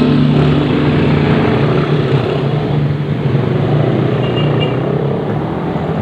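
Street traffic noise, with the engines of cars, a jeepney and motorcycles running close by in slow traffic.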